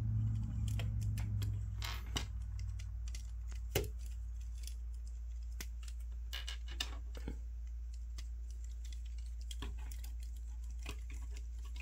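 Scattered light clicks and taps of the plastic parts and joints of a Figure-rise Standard Lite Super Saiyan Goku model kit figure as it is handled and posed, with one louder knock about four seconds in. A steady low hum runs underneath.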